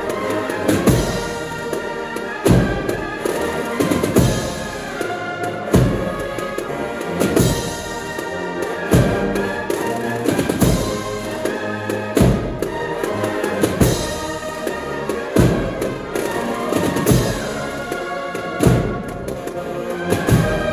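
A Spanish Holy Week agrupación musical playing a processional march: a brass melody over rattling snare drums, with heavy bass-drum strokes about every second and a half.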